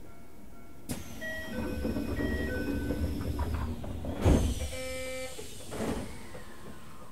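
Chime tones on a Keisei 3000-series commuter train stopped at a station, then its sliding doors closing with a loud thud a little after four seconds in. A short chime and a second, lighter thump follow.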